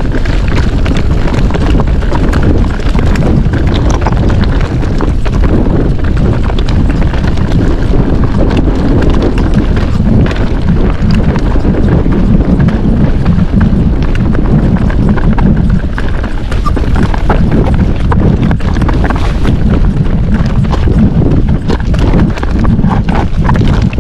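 Commencal Meta TR 29 mountain bike ridden fast over rocky trail: a continuous loud rattle of tyres, chain and frame, full of rapid small knocks and clacks over a low rumble.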